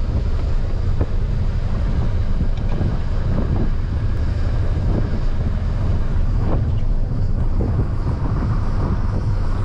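Wind buffeting the microphone over the steady low rumble of a moving vehicle, with a few faint knocks.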